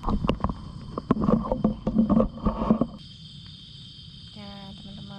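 Irregular knocking and rustling for about three seconds, like gear being set down and handled. Then it cuts abruptly to steady chirring of crickets at night, and a woman's voice starts near the end.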